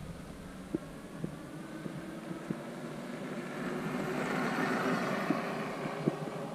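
Electric bike riding under throttle: a steady motor whine with tyre and rolling noise that swells and rises in pitch in the middle as it speeds up, with a few small clicks and rattles.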